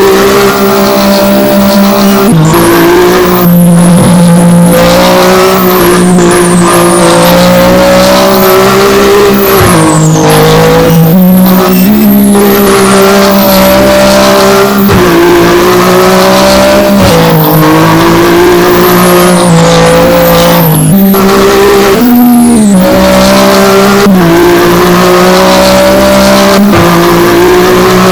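A motor vehicle engine running hard and steadily, its pitch shifting up and down in steps every few seconds.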